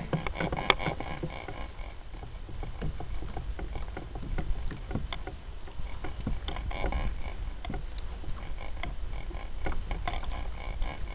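Water lapping against a plastic pedal kayak's hull over a low wind rumble, with scattered knocks and clicks and a faint run of short high ticks a few times a second while a hooked fish is played on the rod.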